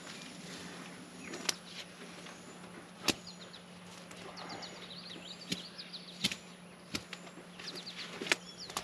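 Outdoor ambience: a steady low hum, about six sharp clicks or snaps spaced through it, and faint bursts of short, high chirping.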